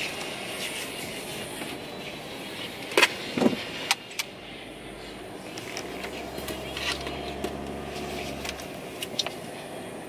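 Steady road and engine noise inside a moving car's cabin, with a few sharp clicks and knocks about three seconds in.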